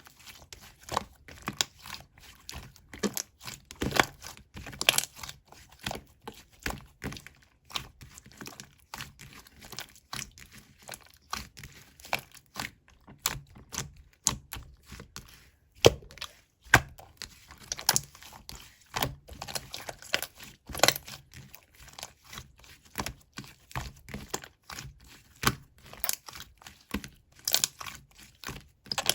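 Glossy slime being pressed, poked and stretched by hand, making irregular sharp clicks and crackly pops several times a second.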